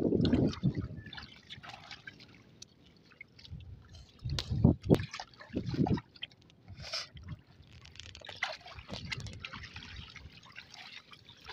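Shallow water and wet mud trickling, dripping and splashing as hands handle a monofilament gill net with fish caught in it, with scattered crackling clicks from the net and grass. A few louder thuds come about four to six seconds in.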